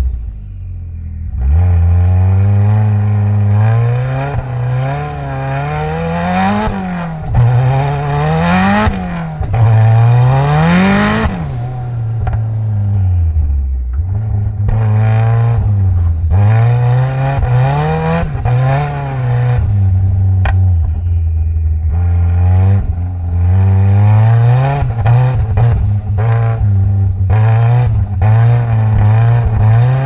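Mitsubishi Lancer Evolution X's turbocharged 2.0-litre four-cylinder, tuned to about 500 hp, heard from inside the car as it is driven in second gear, its revs rising and falling again and again. A faint high whine rises and falls along with the engine.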